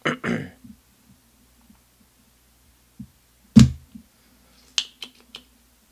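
Spring-loaded vacuum desoldering pump fired once, a single loud snap about halfway through as the plunger releases to suck molten solder off a board joint. A few lighter clicks follow near the end.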